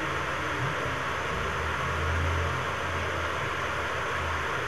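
Steady background hiss with a low hum underneath and no speech: room tone.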